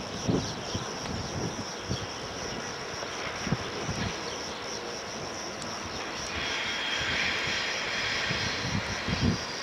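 A train hauled by an E.652 electric locomotive approaching, a steady rushing rumble that grows a little louder. About six seconds in a high squealing note joins.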